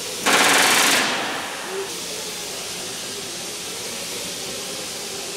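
Pneumatic rivet gun hammering a rivet into aluminium wing skin in one short burst of under a second, a few tenths of a second in, then dying away over a steady background hiss.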